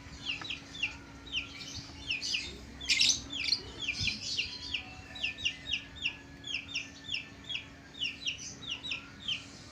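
Birds calling: a rapid run of short, high, falling chirps, about two or three a second, with one louder, harsher call about three seconds in.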